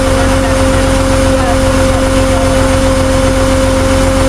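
Vehicle engine running steadily, a constant low rumble with a steady droning hum over it.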